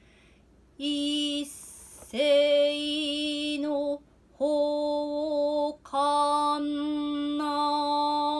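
A solo woman's voice chants noh utai (su-utai, unaccompanied recitation) in long, steady held notes. There are four phrases with short breaks between them.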